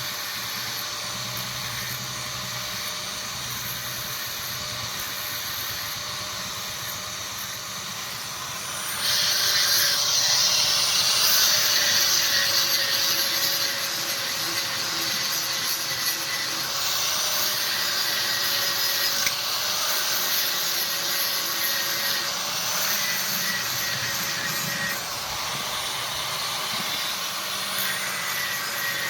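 Power grinder running with a steady motor whine, grinding the steel spear blade; from about nine seconds in it grows louder and harsher for several seconds as the tool bears harder on the metal.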